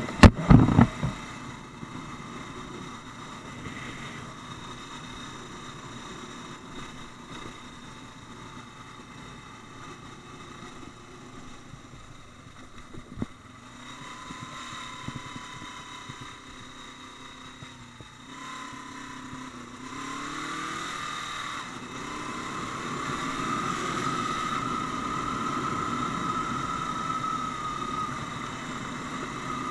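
Motorcycle engine running on the road, heard from a camera strapped to the rider's helmet: a couple of loud knocks at the very start, then steady running. About two-thirds of the way through the engine pitch rises as the bike accelerates, and it runs louder and higher to the end.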